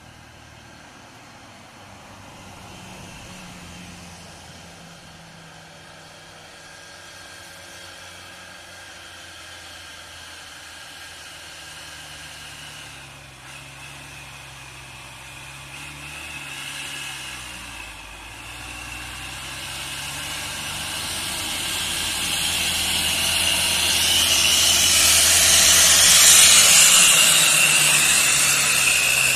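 Light cargo truck's diesel engine labouring up a steep grade. It grows steadily louder as it approaches and passes close, peaking with strong engine and tyre hiss near the end. Its engine note dips once about halfway through.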